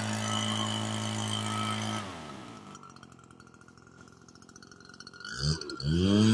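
Farmertec backpack leaf blower, a two-stroke clone of the RedMax 8500, running at full throttle. About two seconds in the throttle is released and the engine winds down to a quiet idle. Near the end it is revved sharply back up to full speed.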